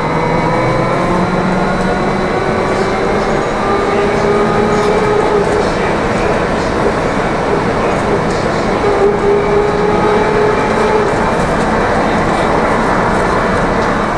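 Inside a moving trolleybus: the electric traction motor whines in several tones that climb gradually as it gathers speed and then hold steady, over constant road and tyre noise.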